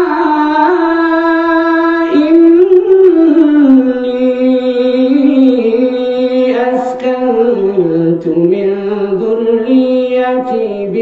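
A man's voice reciting the Quran aloud in the melodic chanted style, drawing out long ornamented notes with no break. The pitch glides down over the middle of the passage and climbs again near the end.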